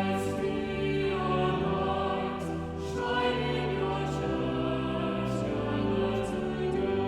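A choir singing slowly in long, held notes.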